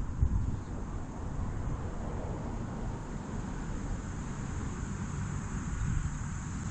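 Wind buffeting the microphone outdoors: an uneven low rumble that rises and falls, with a faint steady high hiss behind it. No club strike is heard.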